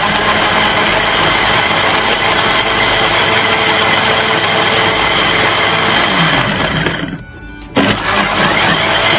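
Electric mixer-grinder motor running at full speed, grinding a wet masala paste of fried onion, ginger-garlic, coriander seed, yogurt and tomato. It winds down and stops about seven seconds in, then starts again under a second later.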